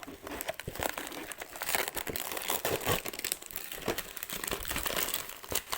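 Plastic packing material crinkling and rustling as it is pulled and crumpled by hand, with a few short tearing sounds.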